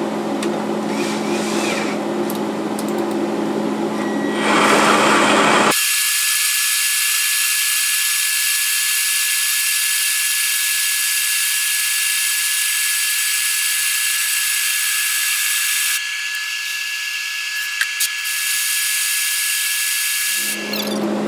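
Cordless drill spinning a grain mill as it crushes brewing grain, heard as a steady high whine with the low end gone because the footage is sped up. For about the first six seconds there is a steady hum from a running range hood fan, which comes back near the end.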